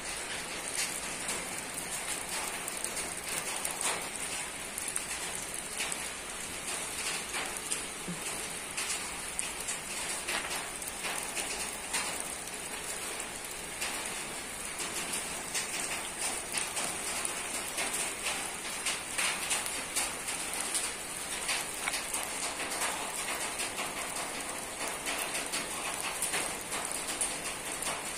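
Rain falling on a roof: a steady, dense patter of many individual drops striking the surface.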